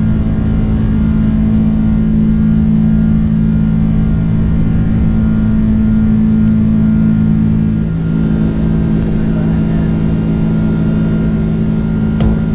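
Jet airliner's engines at takeoff power, heard from inside the cabin during the takeoff roll and climb-out: a loud, steady drone with a low hum, its tone shifting slightly about eight seconds in. A few sharp, evenly spaced clicks start just before the end.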